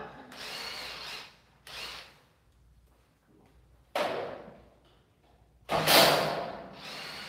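Work noise on a steel-stud door frame: a cordless drill runs briefly near the start, then two loud metallic bangs about two seconds apart, each ringing out for about a second.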